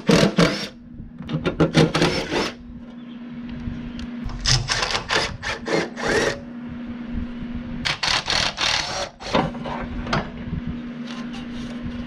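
Bursts of rapid mechanical clicking from a hand tool working the sawmill's fasteners loose, five short runs with pauses between, over a steady low hum.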